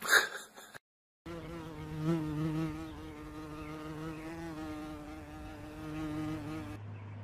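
A brief thump, then after a short gap a flying insect buzzing steadily for about five seconds, its pitch wavering slightly, before it cuts off.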